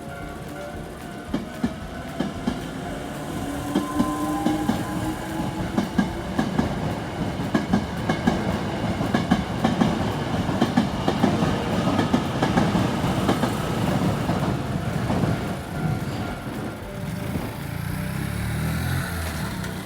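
Hankyu Kobe Line electric train passing close by, its wheels clattering over the rail joints, with a faint rising whine in the first few seconds.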